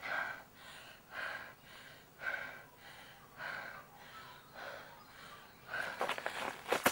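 A woman sobbing, with a gasping breath about once a second. Near the end, a quick run of sharp clicks.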